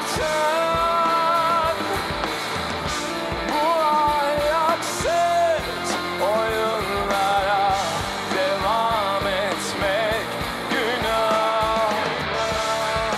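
Alternative rock band playing live: a voice singing over electric guitar, bass guitar and drums.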